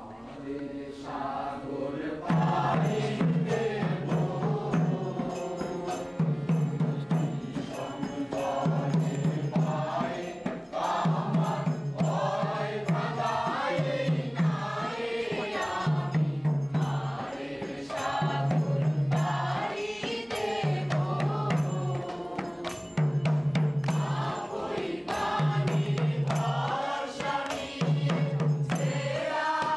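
A group of voices chanting a song together, starting about two seconds in, over quick percussion strikes and a low beat that comes about every two seconds.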